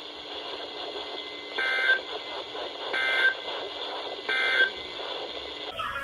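Weather radio broadcast closing a warning with three short bursts of SAME end-of-message data tones, each about a third of a second, about 1.4 s apart, over radio hiss. The bursts mark the end of the alert message.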